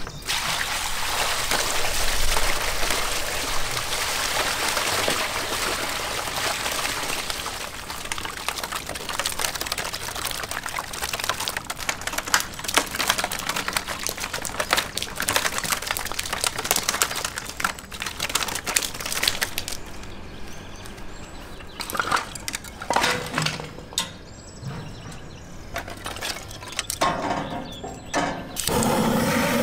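Water pouring and splashing out of a plastic barrel for about the first eight seconds, then a long run of irregular clicks and knocks, fading to scattered quieter handling sounds.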